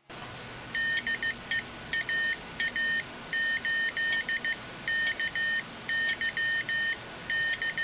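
Morse code coming over a radio receiver: a high beeping tone keyed on and off in short and long beeps over a steady static hiss, an incoming telegraph message.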